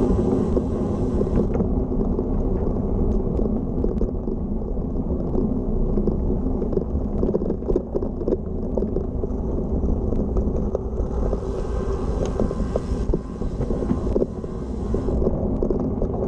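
Road bike riding across a timber boardwalk: a steady rumble of tyres on the deck boards and wind on the microphone, with many small clicks and knocks from the planks under the wheels.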